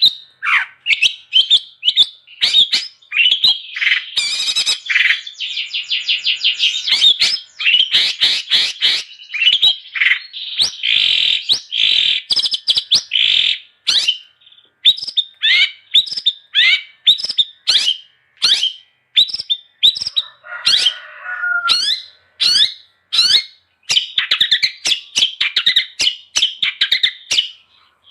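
Long-tailed shrike (cendet) in full, nonstop song: a fast, varied stream of sharp chirps, quick trills and chattering phrases with hardly a pause, and harsher, lower scratchy notes about twenty seconds in.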